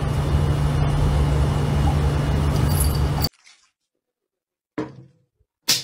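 Steady low hum that cuts off abruptly about three seconds in, followed by near silence broken by two short clicks.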